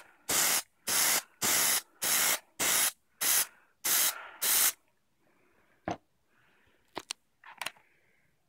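Aerosol can of Plasti Dip rubber coating sprayed in about eight short bursts of a third to half a second each, spattering droplets to build a pebbled texture rather than a smooth coat. After that there are a few faint clicks of handling.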